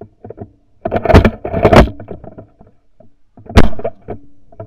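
.410 shotgun shots at a passing pigeon: two loud blasts close together about a second in, then a third, sharp blast near the end that brings the bird down in a burst of feathers.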